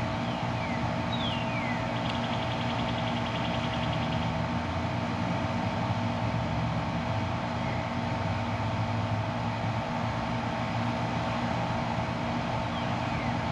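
Steady mechanical hum of a central air conditioner's outdoor unit running, its fan and compressor drone holding two fixed tones.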